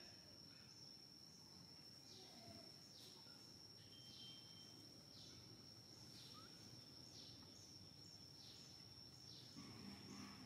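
Faint natural ambience: a steady high-pitched insect drone with short falling chirps repeating about once or twice a second.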